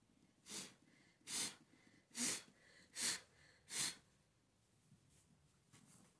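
Five quick brushing swipes, evenly spaced about three-quarters of a second apart, as soot is dusted off a bed.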